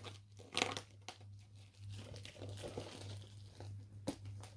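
Plastic wrapping on a Blu-ray steelbook being crinkled and torn open by hand, with scattered crackles and a couple of sharper clicks.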